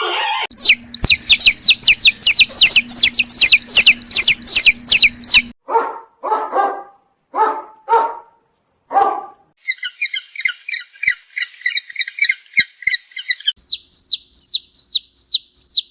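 A run of different animal calls, one after another: a fast series of high chirps for about five seconds, then five barks spaced about a second apart, then a rapid buzzing trill, and near the end a bird's repeated falling chirp.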